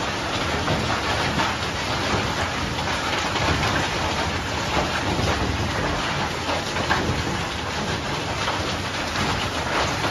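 Hailstorm: heavy rain and hail falling steadily, a dense hiss made of many small hits, with wind in the trees.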